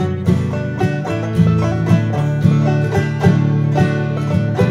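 Instrumental background music in a bluegrass or country style, led by plucked strings, with notes struck at a steady beat.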